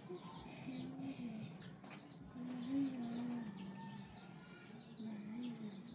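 Doves cooing in low, drawn-out, wavering notes, several times over, with small birds chirping high and quick in the background. Hands are swishing berries in a bucket of water.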